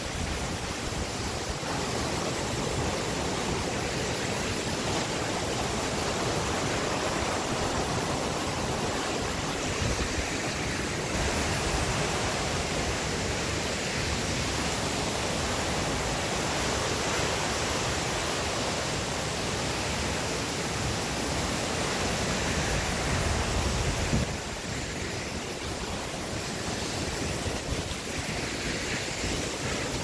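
Steady rushing noise of a tall waterfall, water falling continuously; it gets a little quieter near the end.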